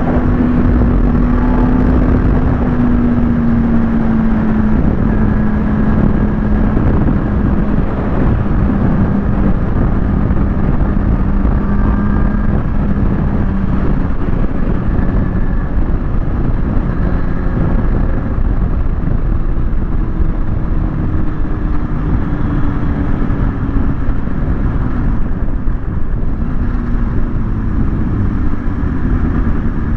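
Kawasaki ZX-6R sportbike's inline-four engine running at a steady cruise under heavy wind rush. The engine note sinks slightly over the first several seconds, holds steady, then lifts a little past the middle.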